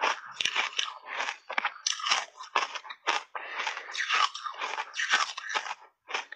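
Mouthfuls of shaved ice mixed with matcha and milk powder being crunched between the teeth: a fast, steady run of crisp crunches, about three a second, with a short pause near the end.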